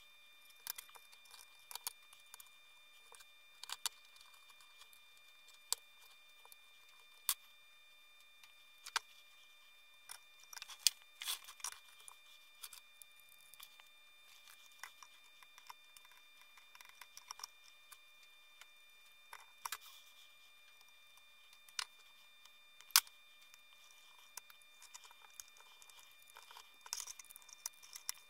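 Scattered light clicks and taps of hands handling a plastic enclosure lid, wires and small electronic parts as they are fitted together, with two sharper clicks about 11 and 23 seconds in. A faint steady high whine sits underneath.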